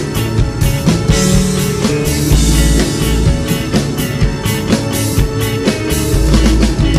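Live rock band playing: electric guitars and bass over a steady drum beat.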